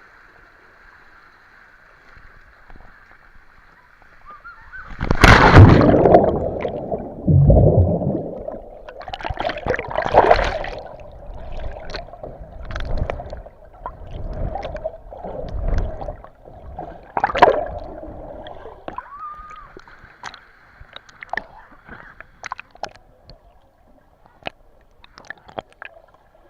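Water sloshing and splashing close to the microphone in irregular surges, loudest about five to eight seconds in and thinning to small splashes and drips near the end. The first few seconds hold only a faint steady hiss.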